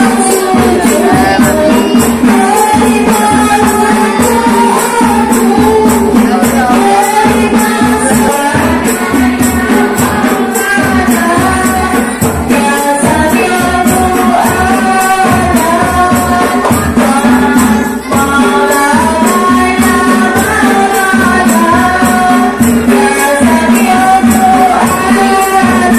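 Sholawat sung to rebana frame drums: a voice singing a wavering, melismatic melody over a steady, repeating hand-drum beat.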